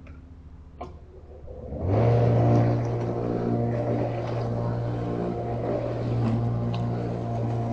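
An engine or motor comes in about two seconds in and runs on steadily with a low hum.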